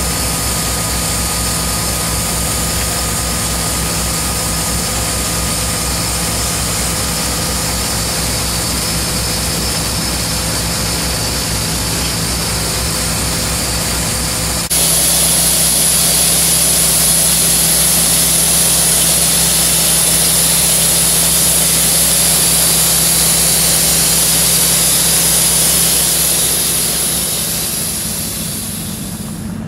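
Towed Ingersoll Rand diesel air compressor running steadily: a low, even engine drone with hiss above it. About halfway through the sound changes abruptly to a louder, hissier drone, which fades near the end.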